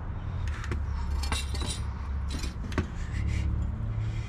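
Light clinks and knocks of metal front-strut parts being handled and knocked together, about eight short hits in the first three seconds, over a low steady rumble.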